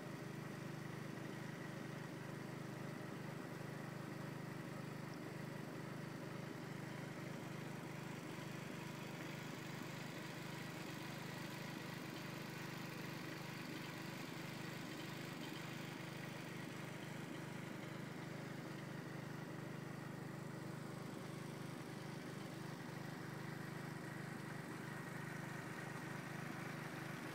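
Motor-driven water pump running steadily, pumping water into the pond: an even, unchanging hum.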